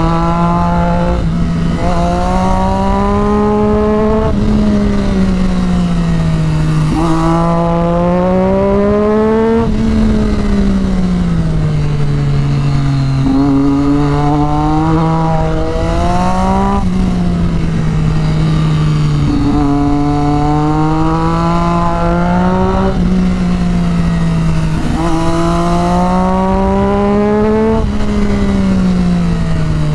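Sport bike engine heard from on board, its note climbing under throttle and falling away through the curves, with sudden pitch jumps at gear changes several times. Wind rushes over the microphone underneath.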